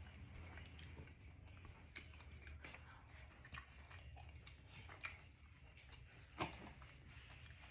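Quiet close-up chewing of a street taco: soft mouth clicks and smacks scattered throughout, the loudest about six and a half seconds in.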